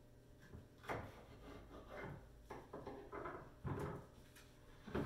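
Irregular knocks and scrapes of a kitchen knife on a cutting board as a bell pepper is cut, with the loudest knocks about a second in, near the end and right at the close.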